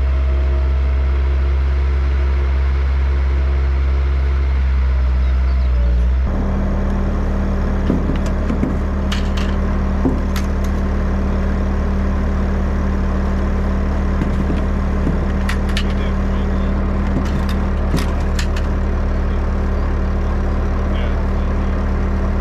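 A vehicle engine running steadily under way. About six seconds in its note changes abruptly to a higher steady hum, and after that light knocks and rattles come and go over the engine.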